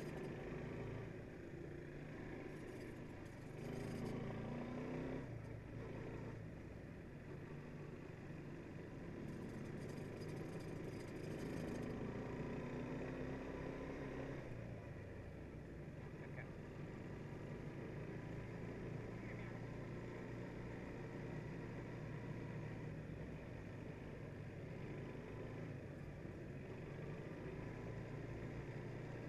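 Quad bike engine running steadily as the bike rides along, its pitch rising for a moment a few seconds in as it speeds up.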